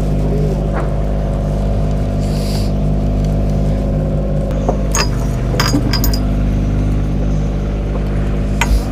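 Boat engine running steadily. A few sharp metallic clinks come about five to six seconds in, and another just before the end.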